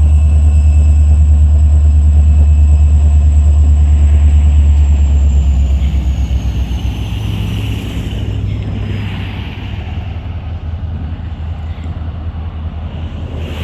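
Diesel road-switcher locomotive's engine running with a deep, loud drone as it passes close by, then fading over a few seconds as it moves away. A thin high whine slides down in pitch as it goes.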